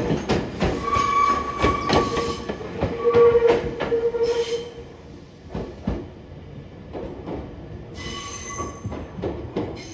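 JR Shikoku 7000 series electric railcar rolling slowly over station pointwork: wheels clicking over rail joints and switches, with a steady wheel squeal. It grows quieter about five seconds in.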